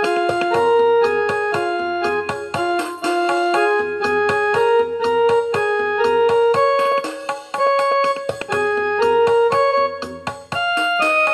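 Background piano music in Raag Bhupali, a pentatonic Hindustani raga: a melody moving from note to note over held lower notes.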